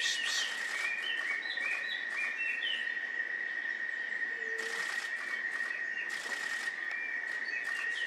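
Birds and insects: a steady high insect drone with several birds giving short rising chirps. Two bursts of rapid dry pulses come through, one around the start and another about five seconds in.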